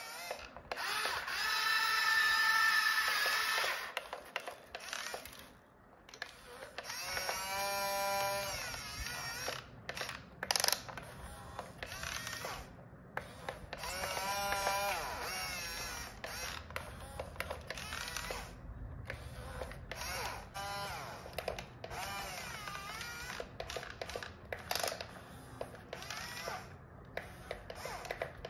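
Electric motors of a toy RC excavator whining in short spells as the boom, arm and bucket move. The pitch rises and falls, with scattered clicks between spells.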